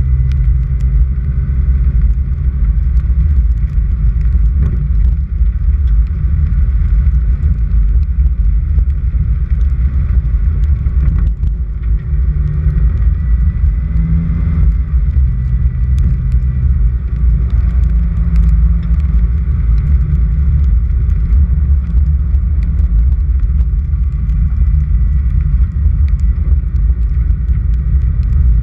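Vehicle driving on an unpaved dirt road: a steady low rumble of engine, tyres and road, with a few faint ticks.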